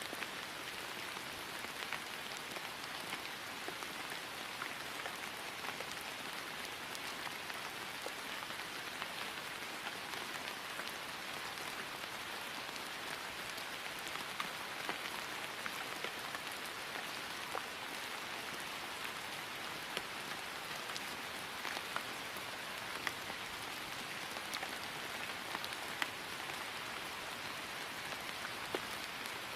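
Steady rain falling on grass: an even patter with individual drops ticking through it now and then.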